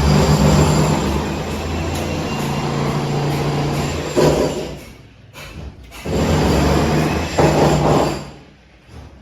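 A loud motor-driven machine running with a steady low hum under a rough noise. It cuts out about four and a half seconds in, starts again about a second later, and stops near the end.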